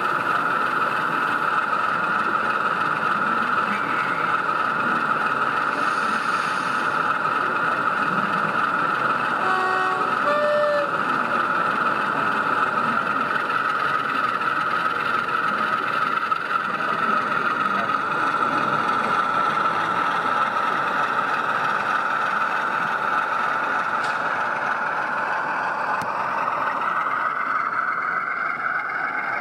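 Sound-fitted OO gauge model Class 47 diesel locomotive running, its recorded diesel engine sound played through the model's small speaker; the engine note drops near the end as the train passes.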